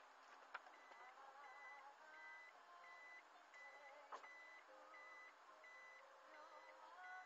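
Faint background music: a soft wavering melody over a short, high beep-like note repeating about twice a second.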